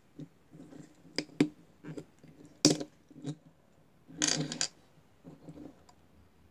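A toy car transporter and its small plastic car being handled on a wooden tabletop: scattered light clicks and knocks. There is one sharp click a little under three seconds in and a brief clatter a little after four seconds, as the small car is taken off the top deck and set down on the table.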